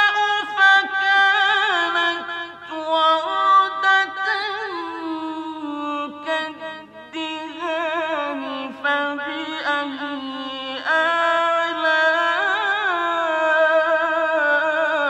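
A male Quran reciter chanting in the ornate mujawwad style, drawing syllables out into long melodic runs with a wavering, ornamented pitch that glides from note to note.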